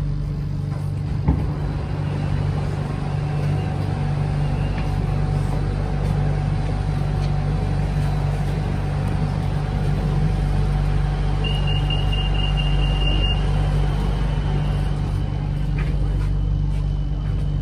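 Steady low hum inside a BTS Skytrain EMU-A1 passenger car standing at a station. A single sharp knock comes about a second in, and a high steady beep sounds for under two seconds about twelve seconds in.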